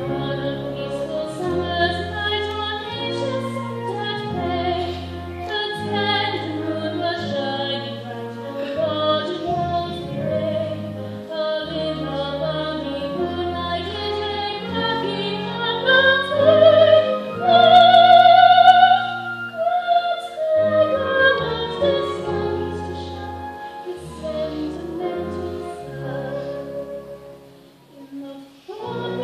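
A live stage musical number: a solo voice sings in an operatic style over low instrumental accompaniment, with a loud long-held vibrato note about two-thirds of the way through, and a brief quieter pause near the end.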